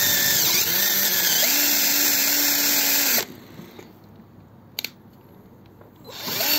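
A drill-type power tool running against the scooter's crankcase edges, its pitch wavering under load as it strips old gasket residue from the mating surface. It stops about three seconds in, there is one sharp click in the pause, and it starts again near the end.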